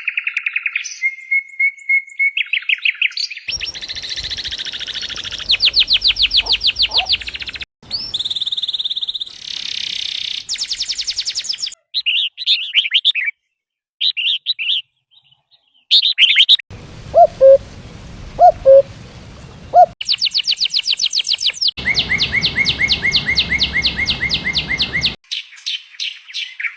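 Small birds chirping and trilling in a string of spliced clips that cut off abruptly every few seconds: fast rapid-fire trills, short high chirps and, in the middle, a few lower whistled notes.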